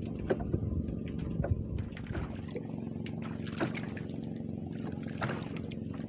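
Small boat on choppy water: waves slapping against the hull in short splashes and knocks, over a steady motor hum. Wind buffets the microphone for the first two seconds or so.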